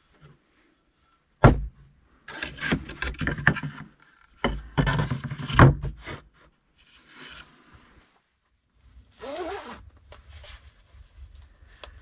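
Wood being handled: a sharp knock about a second and a half in, then clattering and scraping of wooden boards on a wooden table, with another sharp knock near six seconds. Around nine seconds a short creak falls in pitch.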